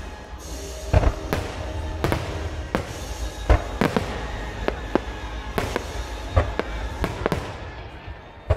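Aerial fireworks shells bursting in a rapid, uneven series of about a dozen booms, over a continuous low rumble.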